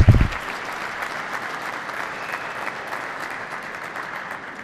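Audience applauding steadily, dying away near the end. A short, loud low thump comes right at the start.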